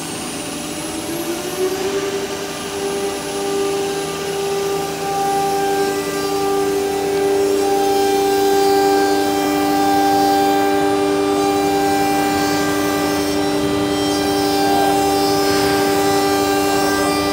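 CNC router spindle whining as it routes grooves into a white-faced board, with a steady rasp of cutting under it. The whine rises in pitch over the first couple of seconds, then holds steady.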